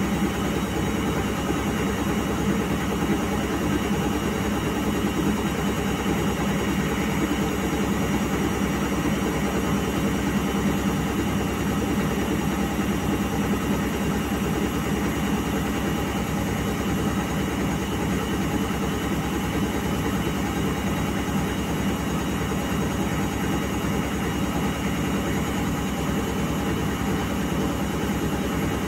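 Indesit front-loading washing machine spinning at low speed, with a steady hum and fast, even pulsing from the motor and drum. The drum is heavily sudsed, and the spin is held back by the excess foam (sudslock).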